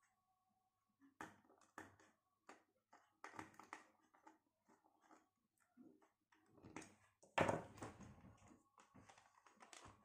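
Faint, scattered clicks, taps and rustles of hands fitting a wire into the brass screw terminals of a plastic switch-and-socket board, with a louder rustling scrape about seven and a half seconds in.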